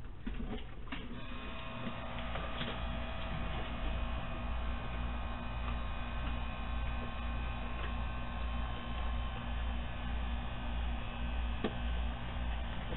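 Steady electrical hum with a few thin steady tones above it, picked up by a security camera's microphone. A couple of faint clicks come through, one a few seconds in and one near the end.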